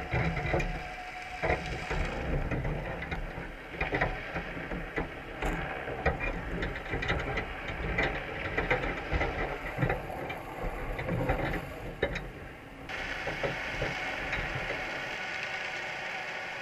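Underwater clicking, knocking and scraping from inside a wire crab trap, the sound of Dungeness crabs clambering over the trap's mesh and the bait bag. About 13 s in, the clicks give way abruptly to a steadier underwater hiss and rumble.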